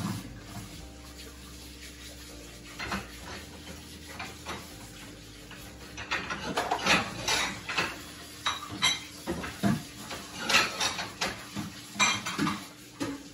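Dishes and cutlery clinking and knocking as they are handled: a few scattered knocks at first, then a busier run of clinks and clatters from about halfway through.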